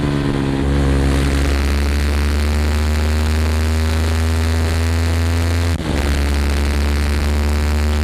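Yamaha WR155R's 155 cc single-cylinder four-stroke engine running through an aftermarket Norifumi Rocket 4 exhaust, held at fairly steady revs while riding. The sound dips and breaks briefly about three-quarters of the way through, then carries on at much the same pitch.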